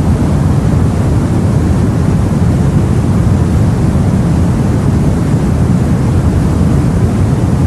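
Steady, deep rumble of sea and wind heard as if aboard a boat: one continuous low noise with no separate wave crashes or other events.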